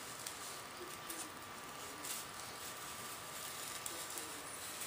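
Hobby knife blade cutting freehand into a thin balsa wood strip: faint scratchy crackling with a few small clicks.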